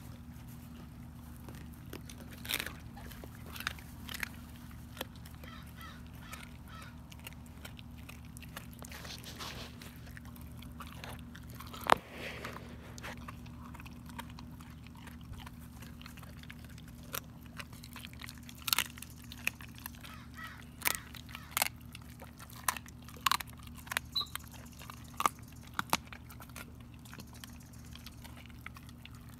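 German Shepherd chewing a raw chicken leg, the bones cracking in sharp, irregular crunches that come more often in the second half, with one loud crack about twelve seconds in. A steady low hum runs underneath.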